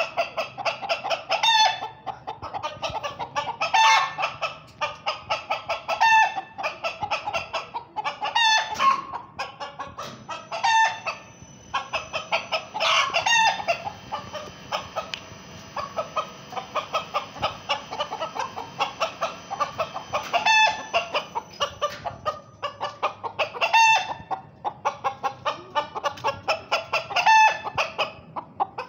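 Chickens in a wire cage clucking in rapid runs of short notes, with a louder call standing out every two or three seconds.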